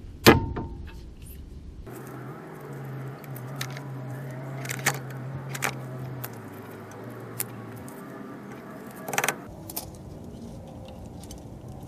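Hand tools on the steering linkage mount bolts: a sharp metallic click with a brief ring just after the start, then scattered metal clinks and clicks over a steady low hum, with a cluster of clinks about nine seconds in.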